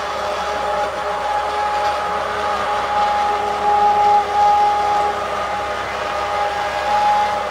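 Immersion (stick) blender running steadily with a motor whine, its blade churning thick pumpkin soup in a pot.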